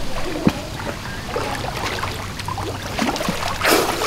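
Water splashing and sloshing as someone swims, with a louder splash about three and a half seconds in.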